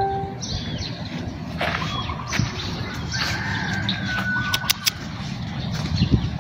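Birds calling in short chirps over a steady low outdoor rumble, with a few sharp clicks about four and a half seconds in.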